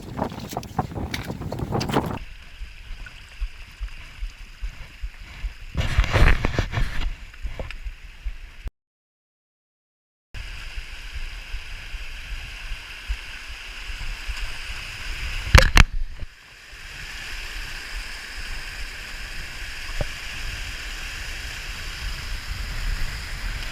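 Gusty wind buffeting the microphone, with sharp gusts near the start, around six seconds in and around sixteen seconds in, and a steady rushing hiss between them. The sound drops out completely for a second and a half around nine seconds in.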